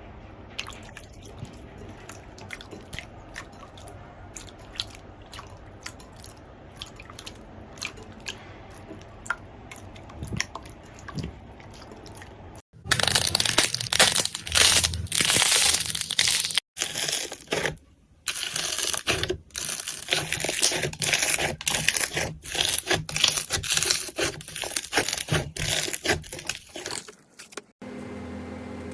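Slime being squeezed and pressed by hand, giving a run of small crackling pops. About halfway through it changes to a louder, denser crackling and crunching.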